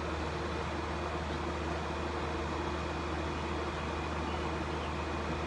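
Steady background hum and hiss, even throughout, with no distinct events.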